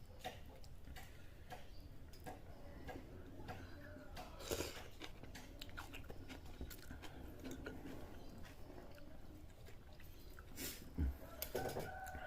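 Close-up eating sounds: chewing and biting into bakso meatballs, with small wet clicks and smacks of the mouth and a few light knocks of a spoon or bowl.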